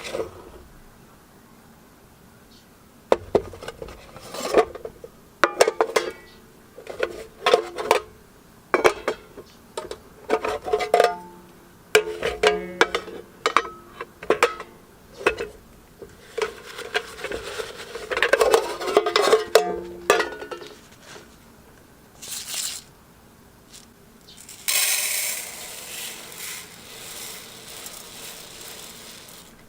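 Aluminium mess kit (hangō) parts clinking and knocking together as they are handled and set down, many separate metallic knocks with a short ring after each. About 25 seconds in, a steady rushing hiss takes over for several seconds.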